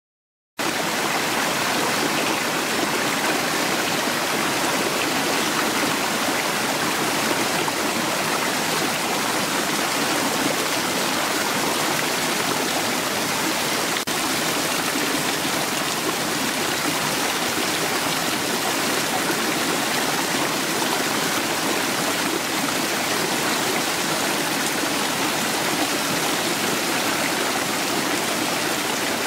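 Many fountain jets and small cascades splashing steadily into a long stone water channel: the Hundred Fountains, with water spouting from rows of carved stone masks. The sound cuts in suddenly about half a second in.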